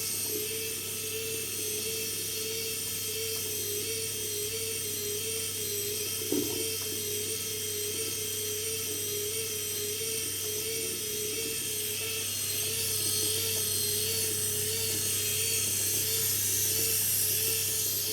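Small electric gear motors driving a hobby-built backhoe's front wheels, running with a steady high whine that wavers slightly in pitch. A short knock comes about six and a half seconds in, and the whine gets a little louder in the second half.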